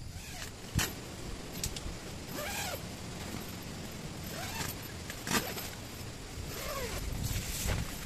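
A zipper pulled in three separate strokes, each rising and falling in pitch, with a couple of sharp clicks and fabric handling in between, over a steady background hiss.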